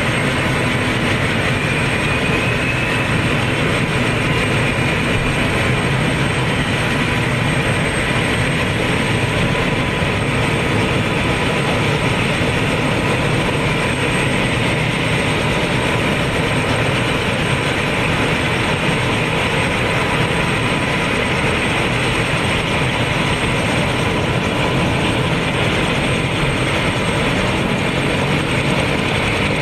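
Sikorsky VH-60N helicopter running at ground idle with its rotors turning: a dense, steady engine and rotor noise with steady whining tones on top.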